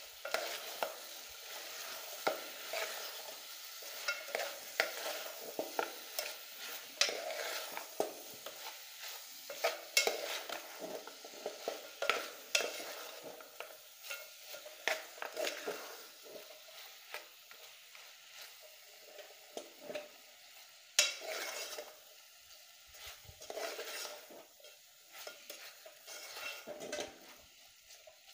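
Metal spoon stirring and scraping chunks of beef in an aluminium pot, in irregular strokes over a steady sizzle. Sharp clinks of the spoon against the pot come now and then, the loudest about 21 seconds in.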